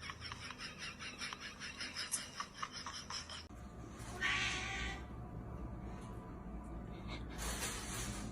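A cat making a fast run of short repeated sounds, about five a second, for roughly three seconds. After a cut the sound changes to two short noisy bursts.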